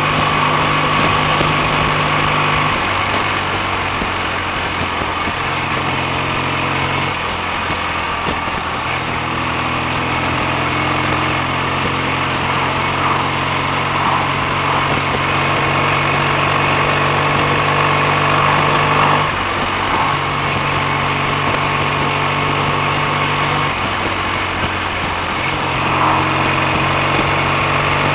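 BSA A65 650 cc parallel-twin engine running under way on a road test. The engine note holds steady, then steps up or down several times as the throttle and gears change.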